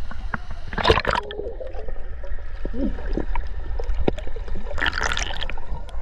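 Water sloshing and gurgling right at a camera held at the water's surface, with two louder splashes, one about a second in and one near the end.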